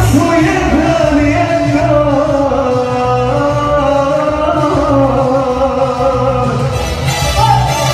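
Live band playing Balkan folk-pop music, with a steady pulsing beat under a long, held, wavering lead melody.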